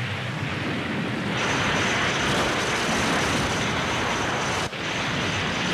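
Animated sound effect of a rushing gale: a steady noise that swells about a second and a half in, with a thin high whine over it, dropping out for an instant near the end.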